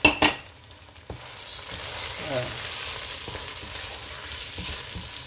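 Raw rice being stirred into sizzling onions and tomato paste in a non-stick frying pan with a wooden spatula: a steady sizzle with the scrape and rustle of grains, setting in about a second in. Right at the start come two sharp knocks, the loudest sounds.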